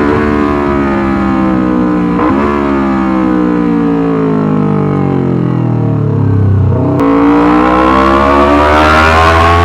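Yamaha R25 parallel-twin engine through a Racefit Slash aftermarket exhaust. The revs fall away, with a short blip about two seconds in, and sink low by about seven seconds. Then the note jumps and the revs climb steadily.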